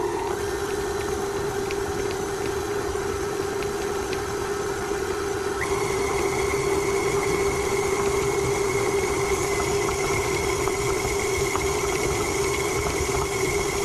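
Electric stand mixer running steadily as its flat beater creams butter and sugar in a stainless steel bowl, a motor hum with a low steady tone. About halfway through, a higher whine joins it and it gets a little louder.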